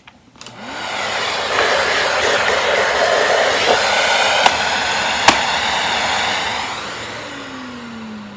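Miele S194 Quick Step stick vacuum's motor starting up and running steadily, with two sharp clicks midway. Near the end the motor winds down with a falling whine as it spins to a stop.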